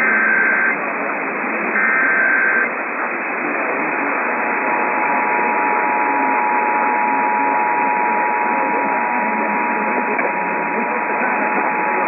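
Emergency Alert System test received over AM radio, with steady static hiss. Near the start come two short bursts of SAME header data, about two seconds apart. About four and a half seconds in, the EAS two-tone attention signal (853 and 960 Hz) starts and holds steady, opening a Required Monthly Test.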